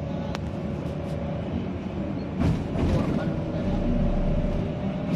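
Road and engine noise inside a moving vehicle: a steady low rumble with a faint steady hum, with a few sharp clicks near the start and a louder knock about two and a half seconds in.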